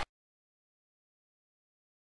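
Dead silence on the soundtrack: the noise of a passing train is cut off abruptly at the very start.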